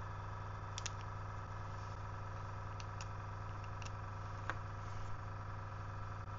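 Steady low machine hum with a few faint clicks and small taps of handling scattered through it.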